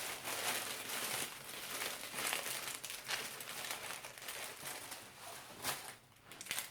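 Wrapped packaging being handled and unwrapped by hand, a busy crinkling and crackling of many quick small clicks that thins out near the end.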